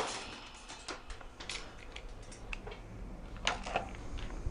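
Faint, scattered clicks and taps of handling at irregular spacing, right after an airsoft rifle's full-auto burst cuts off.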